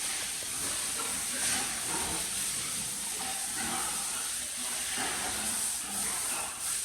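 Water spraying with a steady hiss, as when a pig pen is washed down.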